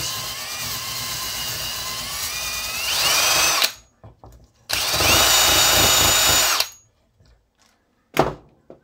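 Cordless drill spinning a wire brush against a chainsaw crankcase, scrubbing off old gasket and dirt. It runs twice: one run of about three and a half seconds that speeds up just before it stops, then a second steady run of about two seconds. A single knock comes near the end.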